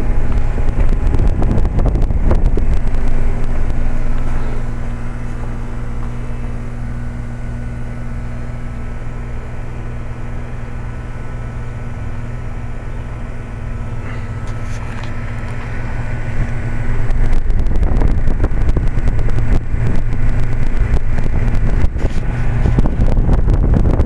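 Trane XL20i heat pump outdoor unit running in cooling on its low stage: a steady hum from its Climatuff reciprocating compressor under the whoosh of the condenser fan. Air blowing up out of the fan buffets the microphone, louder for the first four seconds and again from about sixteen seconds on.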